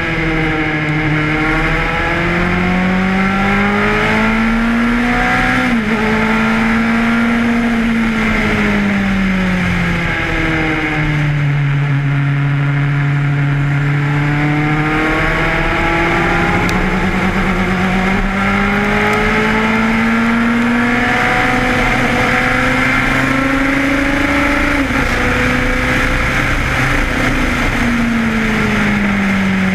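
Ford Cosworth DFV V8 of a 1982 Lotus 91 Formula One car at racing speed, heard onboard: revs climb and break sharply at an upshift about six seconds in, fall away under braking to a low steady note in the middle, then climb again through another upshift and fall away near the end.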